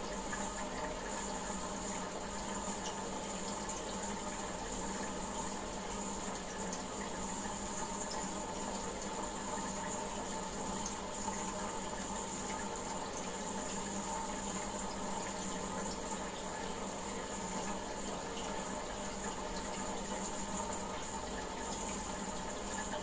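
Water running and bubbling steadily in a goldfish aquarium, with a faint steady hum beneath it.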